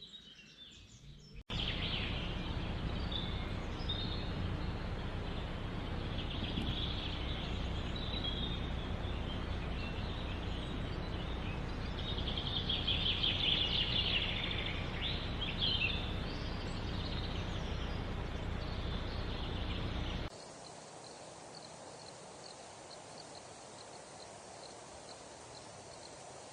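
Outdoor wildlife ambience with birds calling over a steady rushing noise like wind or surf, which starts abruptly about a second and a half in. The calls are busiest a little past the middle. The sound cuts suddenly to a quieter hiss with faint rapid ticking for the last few seconds.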